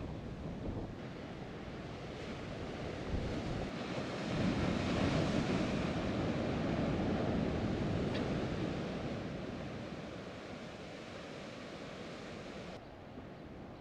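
Ocean surf breaking and washing against a rocky shore. One wave swells louder about four seconds in and then slowly fades.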